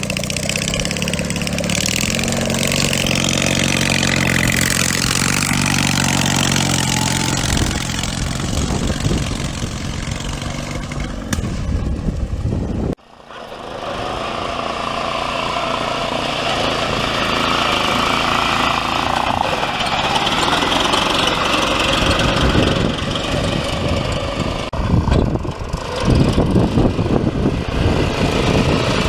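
Engine of a modified Craftsman riding lawnmower running, holding a steady note for the first dozen seconds. About 13 seconds in the sound cuts off abruptly, then the engine noise comes back, rougher and more uneven.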